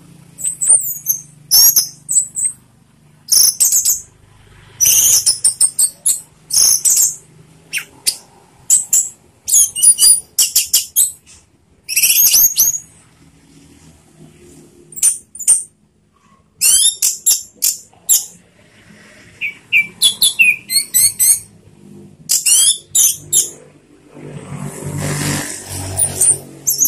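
Orange-headed thrush (anis merah) singing loudly: rapid, high-pitched phrases of gliding whistles and trills, delivered in quick bursts with short pauses between them. Near the end a swell of rushing noise rises under the song.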